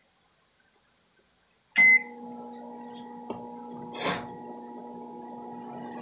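GE microwave oven's control panel beeps once, about two seconds in, as it is switched on, and the oven then runs with a steady electrical hum. Its high-voltage fuse is pulled, so only the low-voltage side and the magnetron filament are powered for a voltage test.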